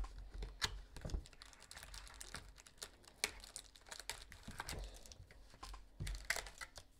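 Faint, irregular crinkles and clicks of plastic wrap and cardboard as a box of football trading cards and its packs are handled and opened.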